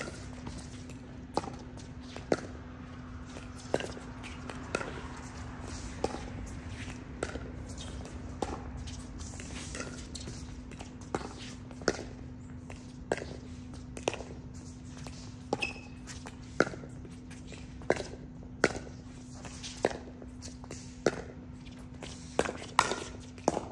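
Pickleball paddles hitting a plastic pickleball back and forth in a long rally, a sharp pock about once a second, with a few softer ball bounces between hits. A steady low hum runs underneath.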